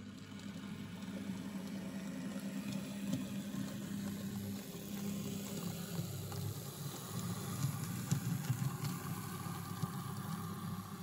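Model locomotive's small electric motor (a 1970s Arnold steam-loco chassis under a diesel body) running as it moves a rake of model coal wagons: a steady low hum with a few light clicks from the wheels on the track. It grows louder in the first second as the train comes close.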